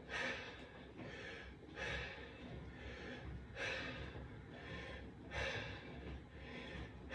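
A man breathing hard from the effort of pedalling an exercise bike, a loud breath about every one and a half to two seconds.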